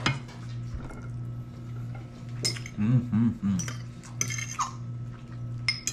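Forks clinking and scraping on plates, with a few sharp clicks of tableware, as two people eat. A brief hummed 'mm' from a voice near the middle, over a steady low hum.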